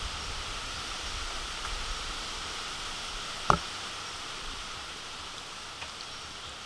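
Steady outdoor background hiss, with one sharp click about three and a half seconds in.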